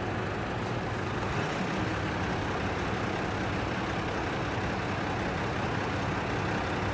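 Sightseeing boat's engine running steadily: a low, even hum under a constant rushing noise.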